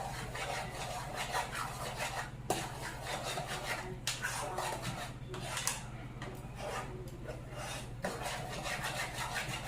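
A spoon stirring and scraping mashed potatoes in a pot, a continuous rough scratching made of many short strokes, over a steady low hum.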